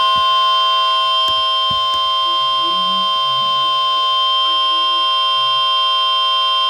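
Emergency Alert System attention tone: a loud, unbroken electronic alert tone held steady at one pitch, strongest near 1 kHz with fainter higher and lower tones layered on it.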